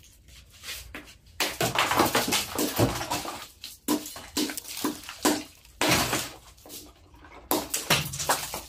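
Ice cubes clattering and water splashing in a bucket of tap water as the ice is worked in, in several noisy stretches with sharp clinks.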